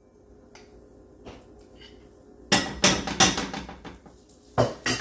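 Cookware and utensils clattering: a few sharp knocks in quick succession about two and a half seconds in, and another single knock near the end.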